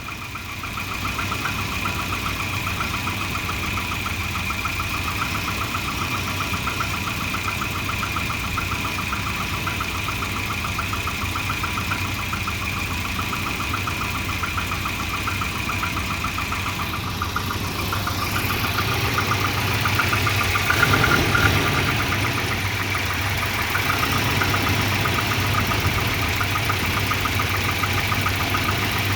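Volvo 240 engine idling roughly, with an uneven rhythmic pulse, and louder for a few seconds about two-thirds of the way through. The rough idle came from a failing exhaust oxygen sensor giving erratic readings once hot; a new sensor cured it.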